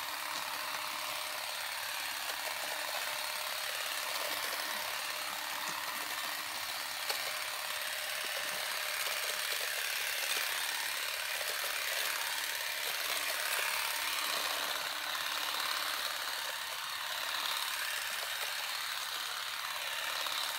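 Stihl HSA 25 cordless battery shrub shears running steadily, the reciprocating blade buzzing as it trims through a leafy shrub.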